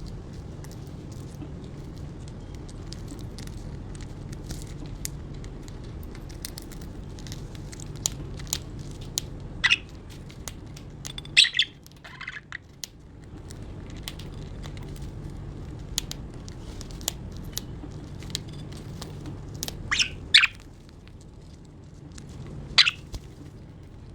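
Budgerigars cracking and nibbling food, a steady run of tiny clicks, with a few short chirps in the middle and near the end.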